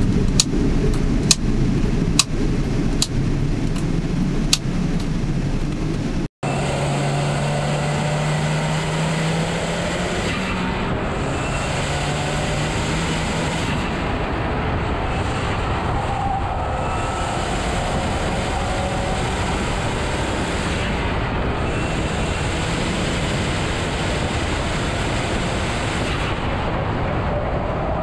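Ford Focus RS's turbocharged 2.3-litre four-cylinder running, heard inside the caged cabin along with sharp clicks. About six seconds in, the sound cuts out for an instant. It then becomes a steady roar of tyres and wind with the engine beneath it, picked up low at the front splitter of the car on track.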